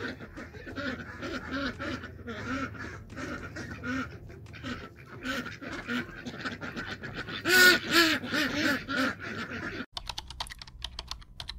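Domestic ducks quacking over and over, loudest in a run of calls about three-quarters of the way in. Near the end the quacking gives way to quick clicks of computer-keyboard typing.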